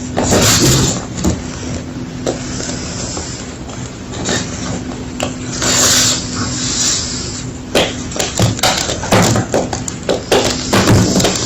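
Homemade gym chalk being crushed, with irregular crunching and crumbling, then a quick run of sharp snaps and crackles in the last few seconds.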